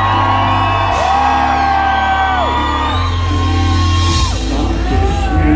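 Rock band playing live with a male lead vocalist singing long held notes that bend at their ends, over a heavy bass line that changes note about once a second.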